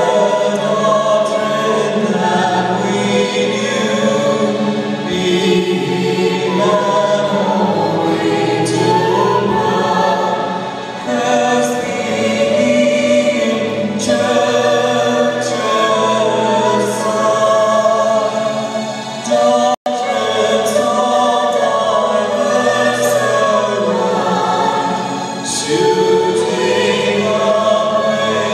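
Church choir singing, several voices together holding long notes. The sound drops out for a split second about twenty seconds in.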